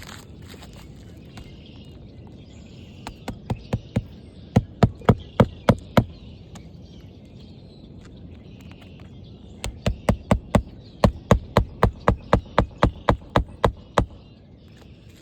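Hammer driving roofing nails into a shingle: two runs of sharp, evenly spaced blows, about two or three a second. The first run begins with lighter taps and builds to full strikes; the second, about ten seconds in, is longer.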